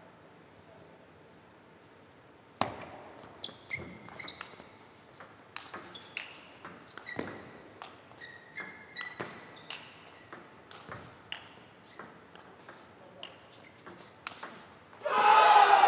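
A long table tennis rally: the plastic ball pings off the rackets and the table some twenty times at an uneven pace, with a short ring after each hit. About fifteen seconds in, the point ends with a sudden loud burst of shouting and applause.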